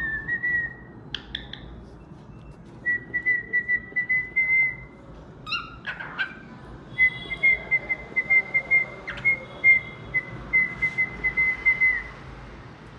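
Cockatiel whistling its song: three phrases of quick repeated notes on a near-steady pitch, with short harsh chirps about a second in and around the middle.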